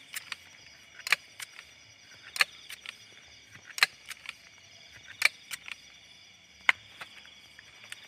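Night insect chorus, a steady high trill of crickets, with sharp single clicks about every second and a half.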